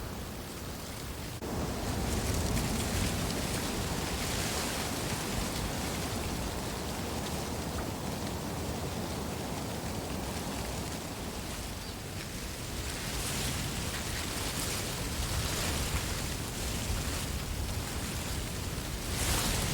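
Wind blowing through reeds: a steady rustling hiss that swells in gusts, stepping up about a second and a half in and rising again near the end.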